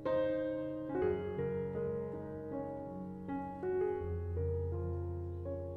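Background music: a gentle piano track, notes changing about every half second over a held bass note.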